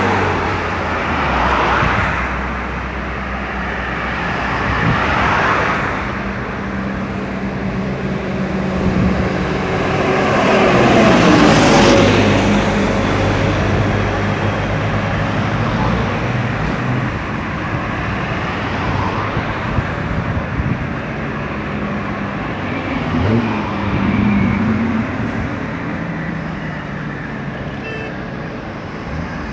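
Road traffic on a highway: cars and heavier vehicles passing one after another over a steady background of engines and tyres. The loudest pass comes about twelve seconds in, its engine tone dropping in pitch as it goes by.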